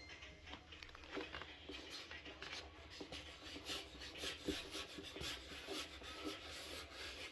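Hands rolling a ball of soft dough on a wooden board, a series of short, soft rubbing strokes.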